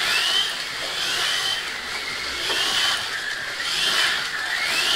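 Small electric motors of 1/43-scale rally slot cars whining as the cars race around the track, the pitch rising again and again as they speed up and dropping back, about once a second, over a steady hiss.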